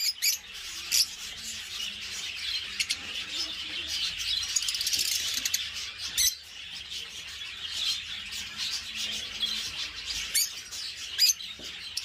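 Many caged pet birds, lovebirds among them, chirping and chattering together in a steady high-pitched din, with a few sharper, louder chirps about a second in and near the end.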